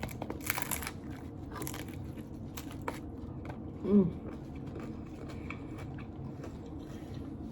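Biting into and chewing a taco: a few crisp crunches in the first three seconds, then a short hum of the mouth about four seconds in.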